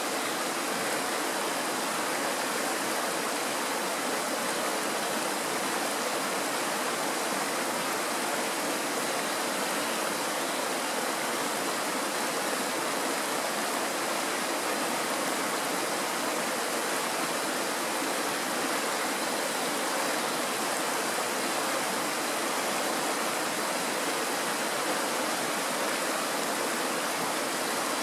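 Kirowa Woda mountain stream rushing over a stony bed in small riffles: a steady, even noise of running water.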